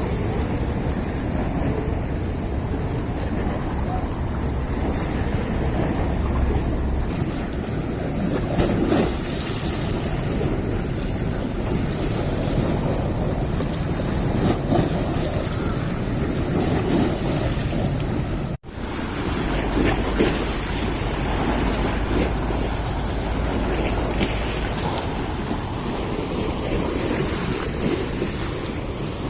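Steady rushing outdoor noise of wind and moving air, buffeting the microphone, with a brief cut to silence about two thirds of the way through.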